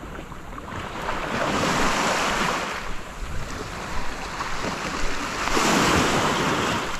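Small waves washing up onto a sandy beach, swelling twice: once about a second and a half in and again near the end. Wind buffets the microphone throughout.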